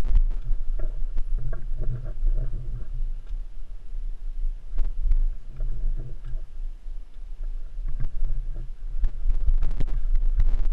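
Single-cylinder motorcycle engine idling with a low, uneven throb, with scattered knocks and clicks over it.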